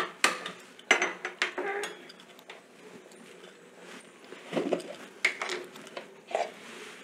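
Metal cookware clinking and clattering on a gas stove grate as a small tempering pan and ladle are handled: several sharp knocks in the first two seconds, then a quieter stretch and a few more knocks near the end.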